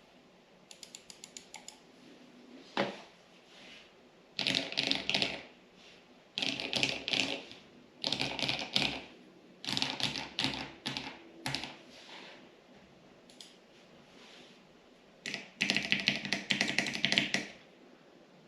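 GMMK Pro mechanical keyboard with Glorious Lynx switches and GPBT keycaps being typed on: bursts of rapid keystrokes, each a second or two long, with short pauses between them.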